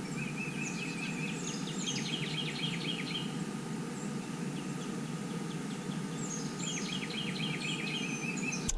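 Songbirds singing in two spells of quick repeated chirps and short falling notes, one at the start and one near the end, over a steady low background noise.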